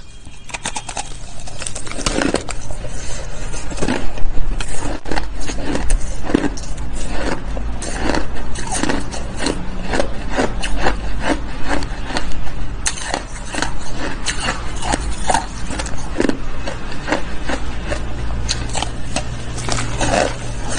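Hard, crunchy shaved ice being bitten and chewed: a fast, irregular run of crunches, several a second.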